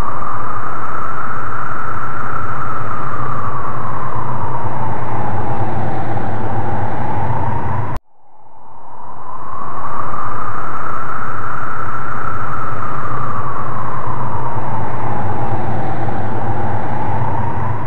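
Loud looped eerie background ambience: a rushing noise with a slowly wavering, whistle-like tone rising and falling over it and a low hum beneath. About eight seconds in it cuts off abruptly, then fades back in over about two seconds and plays the same way again.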